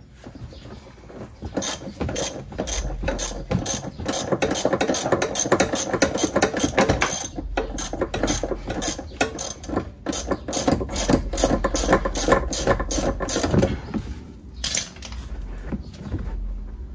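Ratchet wrench clicking as a rear strut bolt is worked, in a long run of quick clicks over a rasping ratchet sound that stops a few seconds before the end.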